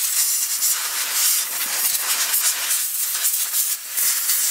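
Compressed-air blow gun hissing as it blows out a petrol RC buggy's foam air filter from the inside out, clearing dust that got past the foam. The hiss swells and eases unevenly and dips briefly near the end.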